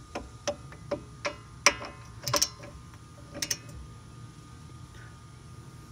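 Steel wrench working a brake caliper bolt: sharp metallic clicks and clinks at uneven intervals, a few with a brief ring. The loudest comes about a second and a half in, and they stop after about four seconds.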